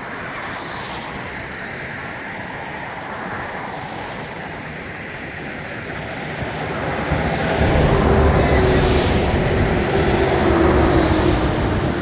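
Steady rushing outdoor noise, then a motor vehicle passes close by, its low engine rumble swelling from about seven seconds in and fading near the end.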